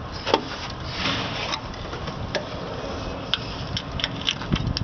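Scattered sharp plastic clicks and taps, about eight at uneven intervals, as a screwdriver pries plastic push clips out of a car's plastic cowl panel.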